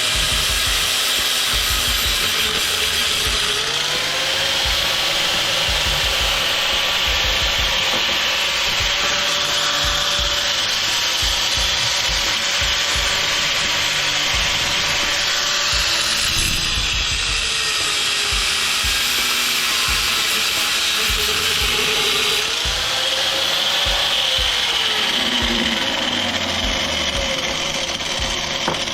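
Power saw cutting through the bolts that hold the electric motor together, running continuously, its motor pitch dipping and recovering several times as the blade bites under load.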